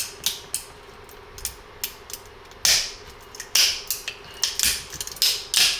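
Irregular clicks, cracks and scraping as a needle tool pries at the support scaffolding inside a 3D-printed plastic airsoft lower receiver, the plastic working loose.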